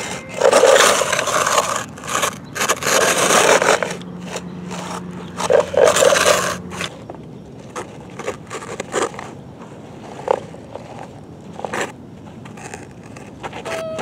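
Tonka Classic steel toy bulldozer pushed through sand, scraping and crunching it in a run of strokes for the first several seconds. Then come only scattered light scrapes and clicks.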